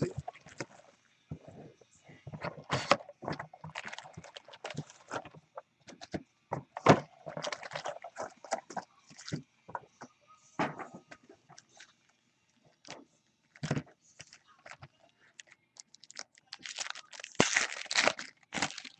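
Cardboard card boxes and foil-wrapped trading card packs handled on a tabletop: scattered taps, knocks and rustles, then a burst of foil crinkling near the end as the packs are handled.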